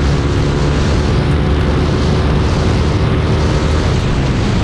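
Yamaha R15S motorcycle's single-cylinder engine running steadily on the move through a loud aftermarket exhaust, heard under heavy wind rush on the microphone.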